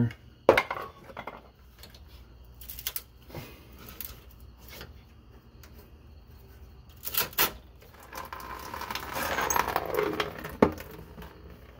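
Metal clicks and clinks of a quick-disconnect fuel line being pried off an inline fuel filter. About eight seconds in comes a couple of seconds of hissing spray as fuel escapes from the opened fitting under leftover line pressure, ended by a sharp click.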